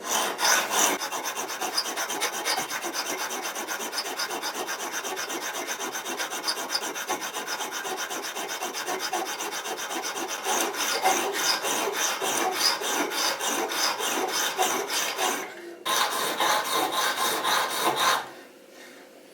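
Diamond sharpening bar (Venev, coarse 100/80 grit side) stroked rapidly back and forth along the steel blade of a vegetable peeler, a continuous rasping scrape. It grows louder partway through, pauses briefly near the end, resumes, then stops about a second before the end. This is the coarse grinding that levels the blade's bevel, until the worn edges and the hollowed middle meet in one flat plane.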